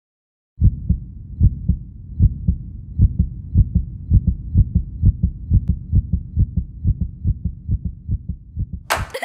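Heartbeat sound effect: low paired lub-dub thumps start about half a second in and quicken steadily. Just before the end a burst of brighter, noisier sound suddenly breaks in.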